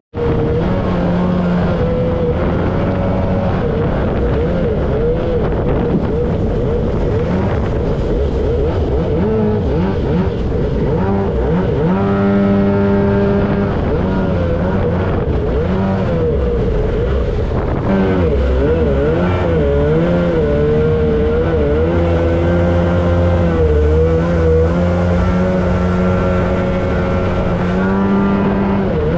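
Two-stroke engine of a mini Superjet jet boat running under way, its pitch rising and falling as the throttle is worked, with the rush of water and the jet drive underneath.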